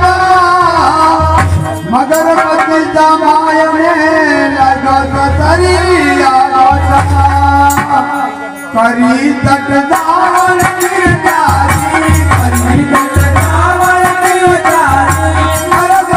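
Rajasthani devotional folk song of the Tejaji tale: a voice singing over drumming and rattling percussion. The singing dips briefly about halfway through.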